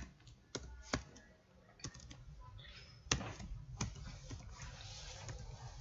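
Computer keyboard being typed on in a slow, uneven run of single keystrokes, the loudest about three seconds in.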